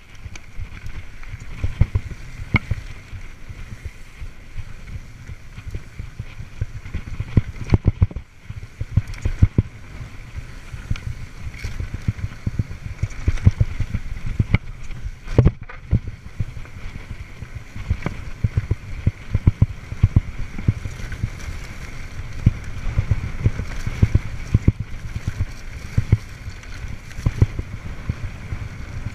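Mountain bike riding fast down a rough dirt singletrack: a constant rumble of tyres and wind on the action-camera microphone, with frequent knocks and rattles as the bike hits bumps. About eight seconds in the noise briefly drops away, the sign of the bike getting air.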